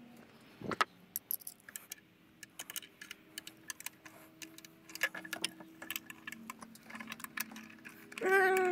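Scattered small clicks and light metallic rattling of tools and parts being handled in the engine bay during ignition coil pack work, with a duller knock about a second in. A brief wavering whine comes near the end.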